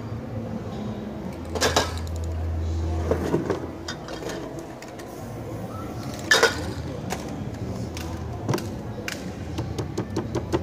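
Knocks, clicks and handling sounds of a spray-painted board and painting materials being moved about on a table, with two brief, louder noisy bursts, about a second and a half in and again about six seconds in.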